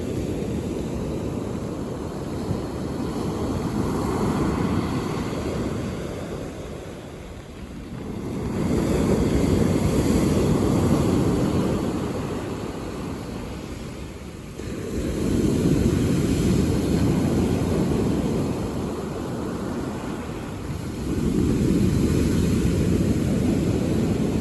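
Sea waves breaking on a beach, the wash swelling and easing in slow surges about every six seconds.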